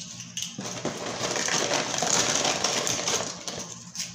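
Thin, crisp pecan crackers being handled and counted out by hand: a dense crinkling with many light clicks, busiest in the middle and easing off near the end.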